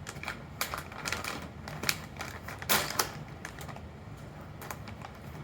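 Small plastic keystone jacks and their packaging being handled: an irregular series of light clicks and rattles, the loudest pair about three seconds in.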